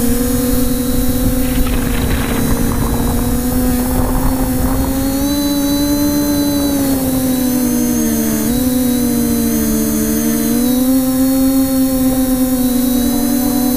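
Multirotor drone's propellers and motors whining steadily, heard from the drone's own camera. The pitch wavers and splits into two close tones about eight seconds in as the drone manoeuvres. There is a rushing, gusty noise in the first few seconds.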